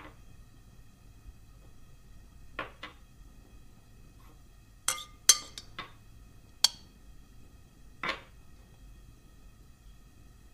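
A string of sharp clinks and knocks as a bowl taps against the rim of an aluminium cooking pot while salt and pork are tipped into the water, the loudest cluster coming about five to seven seconds in.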